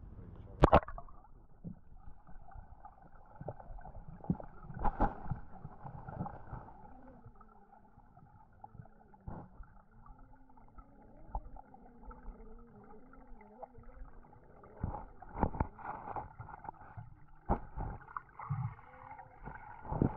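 GoPro camera plunging into a creek with a splash about a second in, then muffled underwater sound with scattered knocks and bumps, and a faint wavering hum in the middle stretch.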